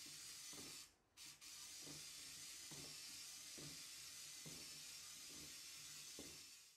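Faint whir of the Apitor Robot S elephant's small motor, with soft knocks repeating a little more than once a second as its legs step, under a steady hiss. The sound cuts out briefly about a second in.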